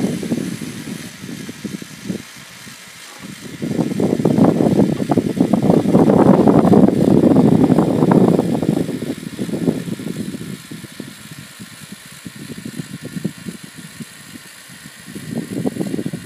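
Motorised LEGO Technic car with a double gearbox driving over rough, gritty ground: a dense rattling noise of plastic wheels and gears with motor whir. It swells as the car passes close, from about four to nine seconds in, fades as it moves off, and rises again near the end.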